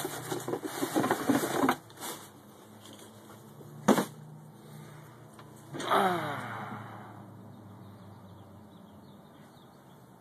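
Crackling and rustling of packaging being handled for the first couple of seconds, then a single sharp click about four seconds in and a short falling squeal about six seconds in.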